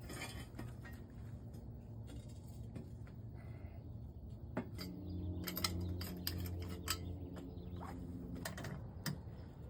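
Scattered light clicks and taps of small hard objects being handled. A steady low hum starts about five seconds in and stops a little before the end.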